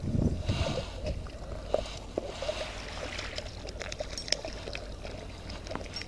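Small waves lapping and gurgling among shoreline rocks, with scattered light clicks and ticks as a spinning reel is cranked in.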